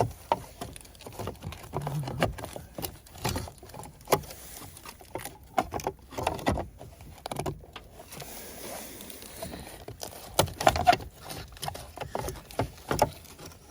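Irregular plastic clicks, taps and rubbing as the wing mirror glass is handled and pressed to clip back onto the mirror housing.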